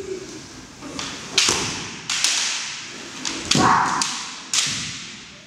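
Bamboo shinai clashing and striking, about half a dozen sharp cracks mixed with stamping feet on a wooden floor, with a short kiai shout about three and a half seconds in. Each crack echoes in a large gymnasium.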